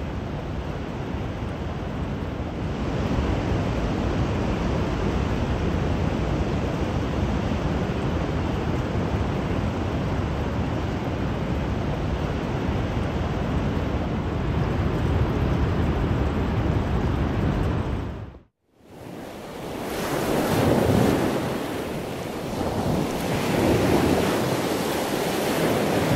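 Heavy storm surf breaking, with wind buffeting the microphone. The sound cuts out for a moment about two-thirds of the way through, then returns as waves surging and breaking, swelling twice.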